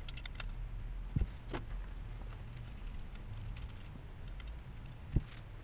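Small metal transmission valve body parts clicking and clinking lightly as they are handled on a workbench. Two dull knocks stand out, about a second in and near the end. A steady low hum and faint hiss run underneath.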